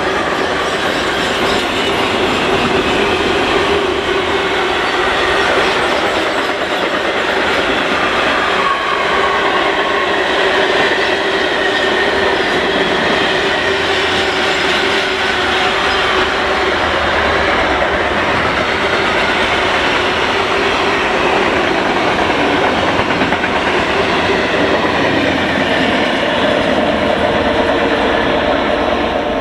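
Long freight train of covered coil wagons and flat wagons rolling steadily past, its wheels rumbling and clattering on the rails, with a steady high squealing tone from the wheels running over it.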